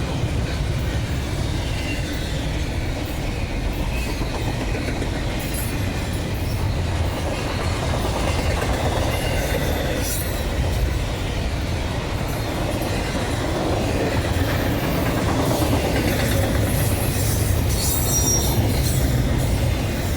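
Norfolk Southern freight train passing at speed: a steady rumble of steel wheels on rail, with irregular clacks over the rail joints and a brief high wheel squeal near the end.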